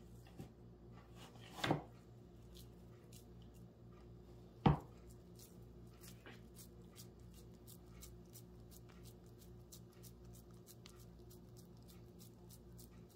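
Hands squeezing and rolling raw minced meat into a meatball: faint, quick wet ticks and squishes. There are two thumps, one a little under two seconds in and a louder one about three seconds later.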